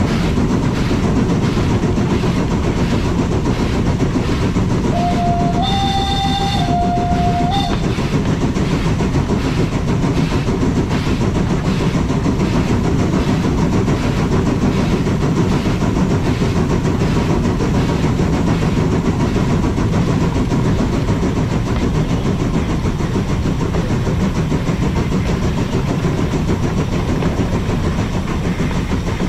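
Steam locomotive running along a rack railway: a steady rumble and clatter with an even rhythmic beat. About five seconds in, a short whistling note sounds for under three seconds, stepping up in pitch and back down.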